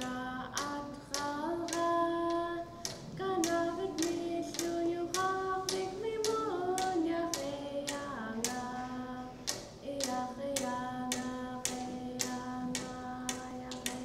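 Yup'ik frame drums, cloth stretched over a birch frame and struck with long thin sticks, beating a steady rhythm of about two to three beats a second. Voices sing a chanted melody over the drumming.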